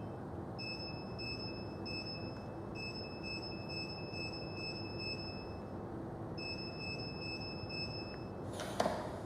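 High electronic beeps from a smart deadbolt lock's keypad, coming in three runs as a passcode is keyed in. A short knock is heard near the end.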